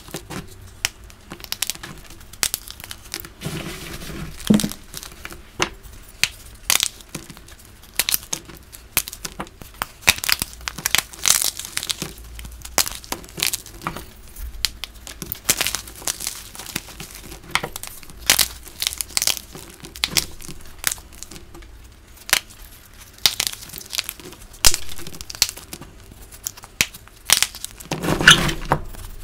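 Dyed gym chalk blocks being snapped and crumbled between the fingers: a run of dry, irregular crunches and crackles. About four seconds in and again near the end, hands press into the heap of broken chalk in a longer, fuller crunch.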